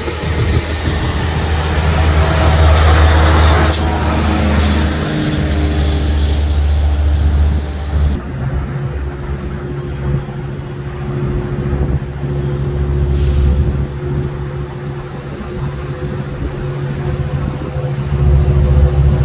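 Metrolink bilevel passenger coaches rolling past with wheel and rail noise for about the first eight seconds, then the steady drone of a Siemens SC-44 Charger diesel locomotive pulling a train out of the station, growing louder as it draws near at the end. A short hiss of air comes about thirteen seconds in.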